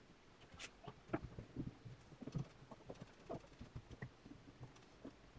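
Faint, irregular light taps and clicks, several a second, as thin black spacer sheets are slid and pressed into place on a planar-magnetic speaker panel's magnet rows and perforated metal frame.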